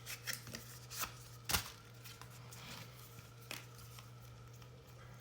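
Hands handling a makeup product and its packaging: a few sharp clicks, the loudest about a second and a half in, with light rustling over a faint steady low hum.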